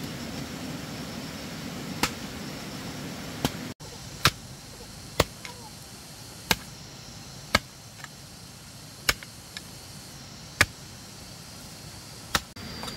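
Hand hoe striking stony earth, about nine sharp chops at roughly one-second intervals as the blade bites into the soil and knocks against stones.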